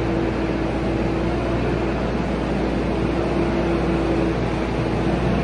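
Tractor engine running steadily while the Kuhn diet feeder wagon's augers and discharge conveyor feed silage out onto the feed passage, with a steady whining hum over the rumble.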